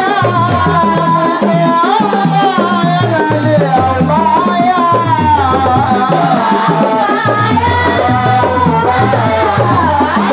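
Qaswida music: hand-held frame drums and jingled tambourines keeping a steady rhythm under a sung melody with vibrato, over a repeating low bass pattern.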